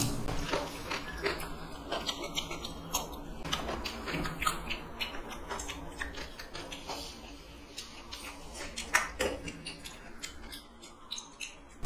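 Eating sounds: two people chewing, with scattered soft clicks and smacks, and fingers mixing rice and chicken curry on steel plates. A few louder clicks come about nine seconds in.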